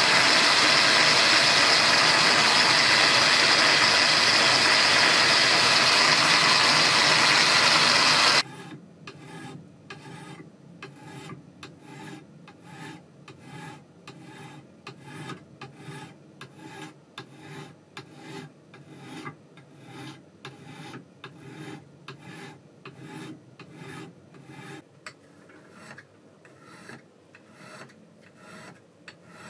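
A power tool runs with a loud, steady noise and cuts off suddenly about eight seconds in. After that, an abrasive is worked by hand over the knife in even back-and-forth strokes, about one and a half a second.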